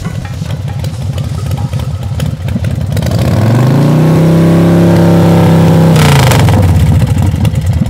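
Motorcycle engine running with a rough low beat, revved up about three seconds in, held at a steady high pitch for a couple of seconds, then let back down to a rough idle.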